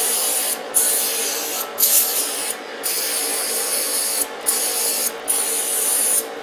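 Aerosol spray can hissing in about six short bursts with brief pauses between them, sprayed down into the cylinder bores of an engine block.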